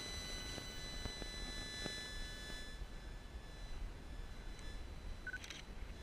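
Electronic interference buzz from a nearby cell-tower antenna picked up on the camera's audio: a set of steady high tones that fade out about halfway through, over a low rumble. A short electronic beep sounds near the end.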